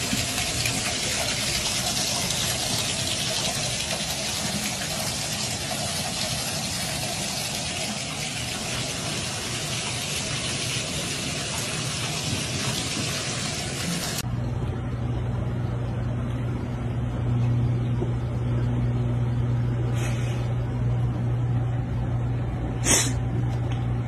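Water pouring from a bathtub faucet onto a cat standing in the tub, a steady rush that stops abruptly about fourteen seconds in. After it comes a steady low hum with a few sharp clicks near the end.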